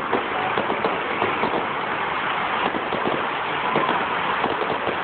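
Aerial fireworks crackling: a dense, steady run of many small pops and sizzles from crackling stars, with no single big boom standing out.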